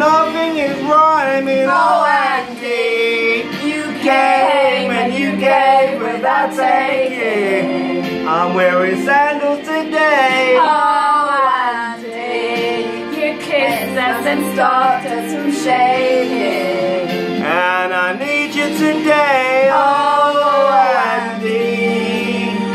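A song sung by male and female voices over an instrumental backing, the long sung notes wavering with vibrato.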